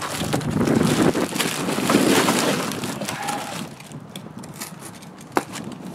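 Bubble wrap crinkling and cardboard scraping as a box is dug out of a bubble-wrap-lined shipping carton, loudest over the first few seconds, then quieter rustling with a single sharp knock near the end.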